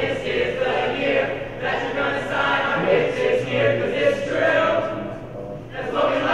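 A group of young men and women singing together on stage, in phrases, with a short break about five and a half seconds in before the next phrase.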